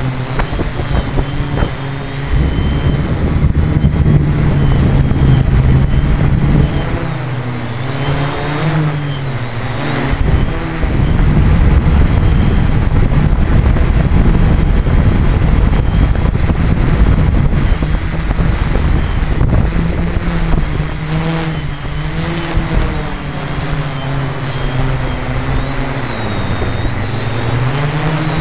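Quadcopter's electric motors and propellers, heard from the aircraft's own camera, buzzing steadily with a pitch that rises and falls as it manoeuvres. Wind on the microphone adds a low rumble at times.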